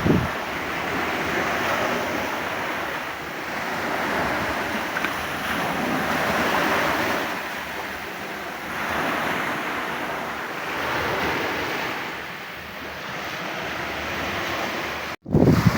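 Sea waves surging in a slow rhythm, swelling and fading every two to three seconds, with wind on the microphone. Near the end the sound cuts out briefly, then strong wind gusts buffet the microphone.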